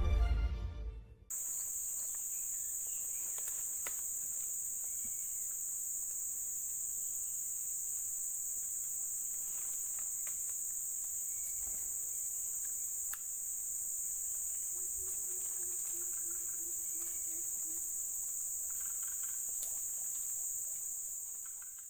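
Steady high-pitched drone of insects, with a few faint bird chirps; intro music fades out in the first second.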